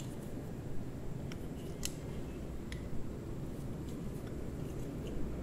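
Scattered light metallic clicks and taps, about half a dozen at irregular intervals, from handling a balisong butterfly knife as it is closed and packed away.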